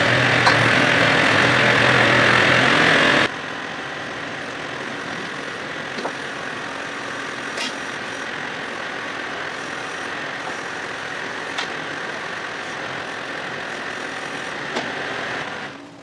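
Tractor engine running, louder for about the first three seconds and then dropping abruptly to a steady lower idle, with a few light metallic clicks over it.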